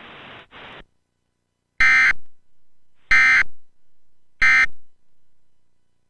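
Emergency Alert System end-of-message signal: three identical short bursts of the digital SAME data tone, each about half a second long and about a second and a quarter apart. Before them a faint hiss stops under a second in.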